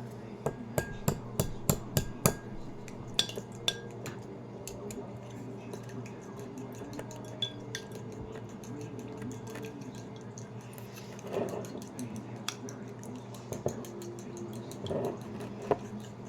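A metal fork or whisk clinking against a bowl while beating eggs: a quick run of sharp clinks about four a second near the start, then scattered clinks and knocks. A steady low hum runs underneath.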